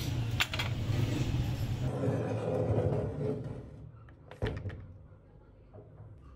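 Outdoor traffic rumble with a couple of sharp metallic clinks as old power tools are shifted in a scrap pile; then, in a quieter room, one sharp knock on a wooden workbench where an old corded drill lies.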